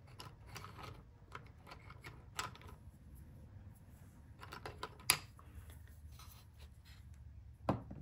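Pens and coloured pencils clicking and rattling against each other and a wooden box as they are picked out by hand, with a few sharper clicks, the loudest about five seconds in.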